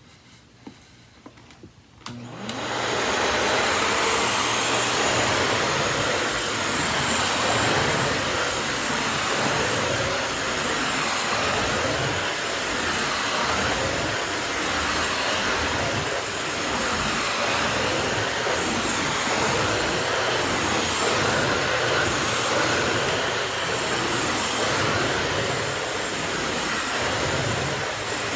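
Miele S194 Quick Step stick vacuum switching on about two seconds in, then running steadily on carpet. Its level swells and dips slightly as it runs.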